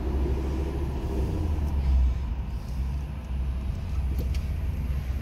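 Deep, steady V8 exhaust rumble from cars idling and rolling slowly, heard from inside a car's cabin, swelling briefly about two seconds in.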